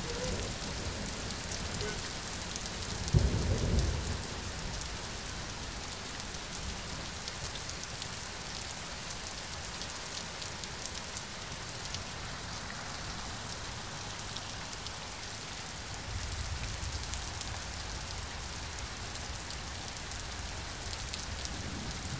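Steady rain falling and pattering on surfaces. About three seconds in, a sudden loud, low clap of thunder rumbles for about a second, and a fainter low rumble of thunder follows later on.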